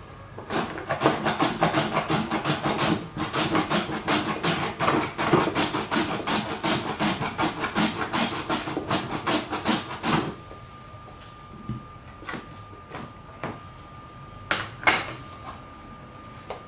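A carrot scraped rapidly back and forth over the grating blade of a plastic vegetable chopper box: quick, sharp rasping strokes, about four a second, lasting some ten seconds before they stop. A few scattered knocks of the plastic container follow near the end.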